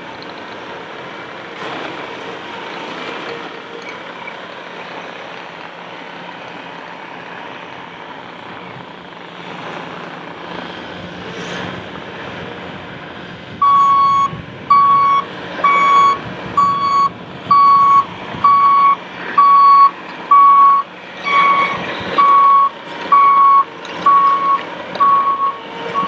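Bobcat T595 compact track loader's diesel engine running as it drives about. From about halfway, a backup alarm starts beeping steadily, a little over one beep a second, which is the signal of a machine reversing.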